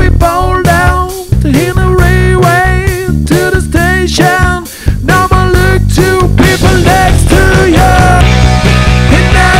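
A song performed by a band: a man singing over strummed acoustic guitar, with a tambourine keeping a steady beat. The voice holds longer notes in the second half.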